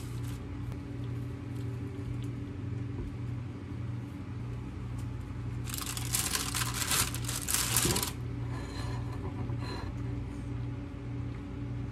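Baking paper rustling and crinkling as it is lifted out of an air fryer's wire basket, loudest for about two seconds in the middle, with lighter crinkles after. A few light scrapes of a wooden spatula come near the start, over a steady low hum.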